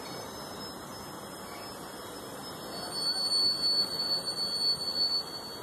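Passenger train running away along the platform with a steady rushing rumble. About halfway through, a high steady whine rises over it for about two seconds.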